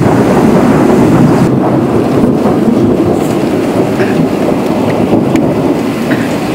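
Thunder rolling in one long, loud, steady rumble.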